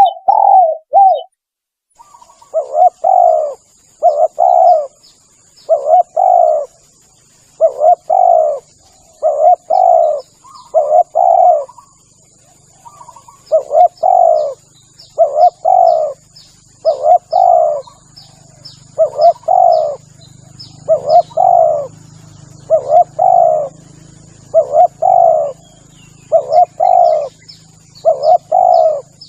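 Spotted dove cooing over and over, each call a quick double coo, repeated about every second and a half, as a lure call for trapping. Faint high chirps and a thin steady high whine sit behind the coos.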